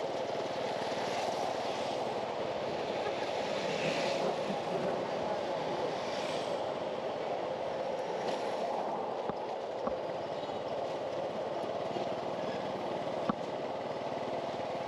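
Busy street ambience: a steady hum of traffic, with vehicles swelling past every few seconds. A single sharp click comes near the end.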